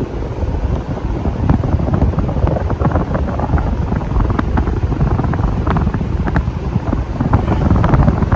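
A 44-inch Minka Aire Supra ceiling fan running on its replaced capacitor, its airflow buffeting the microphone in a loud, uneven, gusty rumble.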